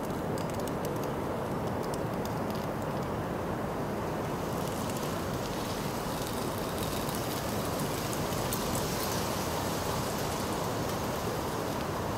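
Steady rumbling background noise, strongest low down, with faint ticks in the first few seconds and a brighter hiss from about four to ten seconds in.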